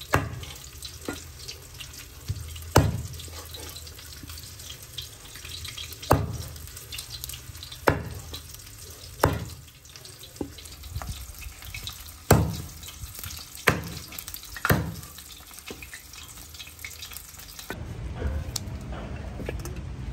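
Meat cleaver chopping skinned frogs on a wooden chopping board: about a dozen sharp chops at irregular intervals, over a steady hiss. The chopping stops about fifteen seconds in.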